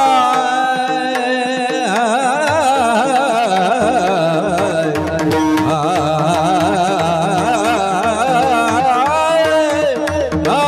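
A bhajan singer's wordless vocal alap: one sustained voice swooping up at the start, then swirling in fast ornamented turns. It runs over a steady drone, and mridang strokes come in about four seconds in.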